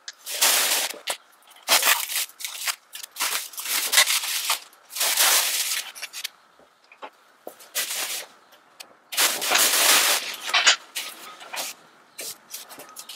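Black plastic bags being pulled and torn off an engine's top end: loud irregular bursts of crinkling and rustling plastic, with short pauses between them.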